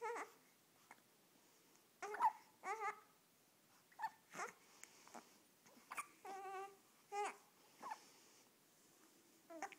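Two young children hiccuping over and over, each hiccup a short sudden catch of breath about every second or two, some coming out as brief high-pitched voiced squeaks.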